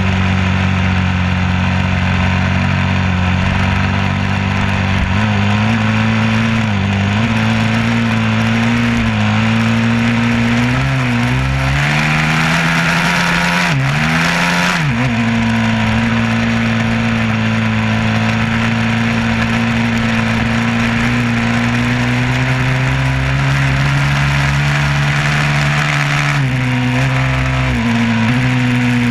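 A vehicle engine running steadily, its pitch shifting slightly as the speed changes. About 12 s in, a rushing hiss rises for a few seconds, and near 14 s the engine pitch briefly dips and comes back up.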